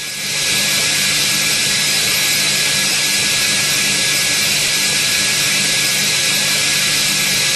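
Holset turbocharger spinning at high speed on a hot-gas test stand during a burst-containment test: a steady, jet-like rush of air with a faint high tone over a low hum. It comes up to full level about half a second in and then holds steady.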